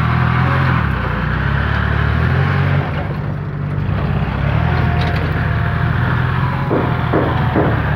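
Kubota tractor's diesel engine running under load while the tractor grades soil. Its note dips and goes quieter for a moment about three seconds in, then comes back up steady. Near the end, a regular beat of about three to four pulses a second joins in.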